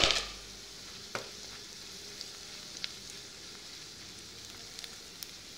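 Chopped onions frying in oil in a nonstick pan, a steady sizzle, with a sharp knock at the start and another about a second in.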